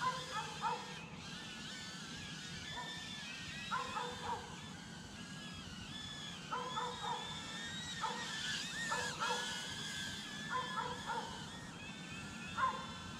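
High-pitched whine of the Eachine E013 Plus micro quad's four brushed motors, wavering up and down in pitch as the throttle changes, while the drone flies on a nearly flat battery. A dog barks in short runs of two or three, about a dozen times.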